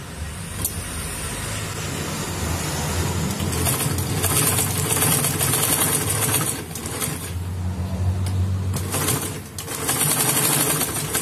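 Old domestic sewing machine run by an add-on electric motor, stitching vinyl upholstery sheet: a steady motor hum under the fast clatter of the needle, easing off briefly twice before running on.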